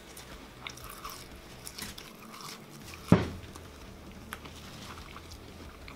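Quiet small clicks and handling noises of someone eating fries at a table, with one sharp knock about three seconds in as a small bowl is set down on the table.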